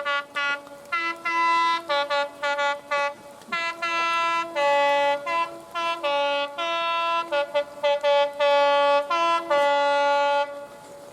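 A train's two-tone horn sounded in a quick run of short and long blasts, switching back and forth between a high and a low note, falling silent near the end.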